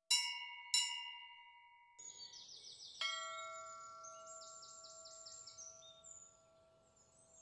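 Temple bell struck twice in quick succession and ringing, then a lower-toned bell struck once about three seconds in and ringing out slowly, with small birds chirping.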